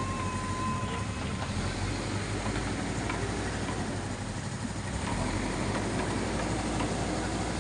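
Diesel engine of a heavy loading machine running steadily, with a brief thin high whine for about the first second and a half.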